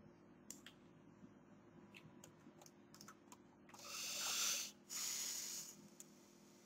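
Scattered clicks of a computer mouse and keyboard. About four seconds in come two loud, hissing rushes of air close to the microphone, a second or less each with a brief gap between.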